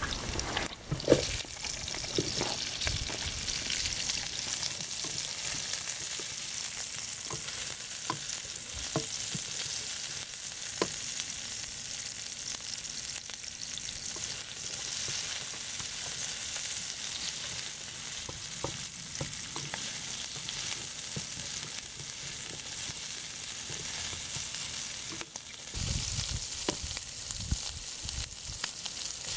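Sliced onions sizzling in hot oil in a wok, a steady frying hiss, with scattered taps and scrapes as a slotted spatula stirs them.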